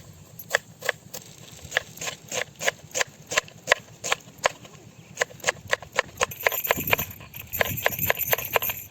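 A steady series of sharp knocks, about two to three a second. A faint hiss comes in over them after about six seconds.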